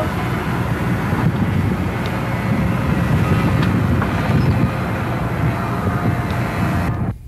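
Steady wind and rumble noise on the microphone in the cockpit of the Bionic Bat human-powered aircraft, with a faint steady hum under it. It drops away abruptly near the end.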